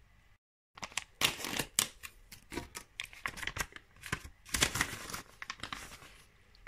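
Sheet face mask sachet being torn open and crinkled by hand: a run of sharp crackling rustles and rips that stops about six seconds in.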